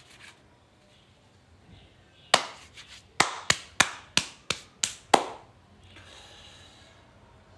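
Sharp smacks from a person's hands: a single one, then a quick run of seven at about three a second, stopping about halfway through.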